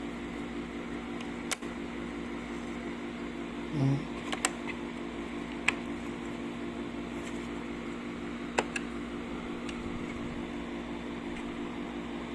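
A steady mechanical hum, like a fan or small motor running, with a few sharp clicks and a dull knock scattered through it, as of plastic parts being handled.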